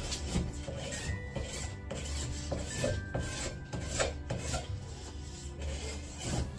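Hand file rasping in repeated strokes along the edge of a new snowboard's top sheet, taking off the sharp factory edge. Background music plays under it.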